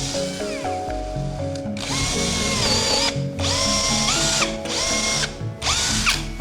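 A small electric power-tool motor run in short bursts: it whines up in pitch, holds, then winds down, four or five times with abrupt cuts between runs. Background music plays underneath.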